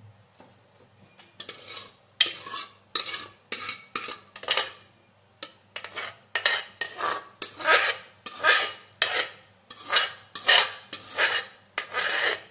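Metal ladle scraping cooked rice out of the inside of a metal pressure cooker pot, in repeated quick strokes about two a second, starting about a second and a half in.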